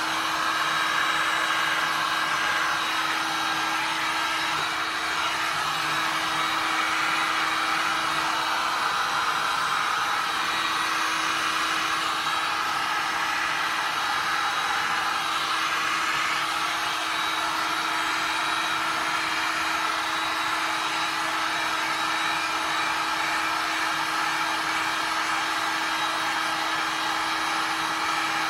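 Handheld heat gun running steadily: an even rush of blown air with a steady low hum underneath, its hot air aimed at wet pigmented resin to move and spread it.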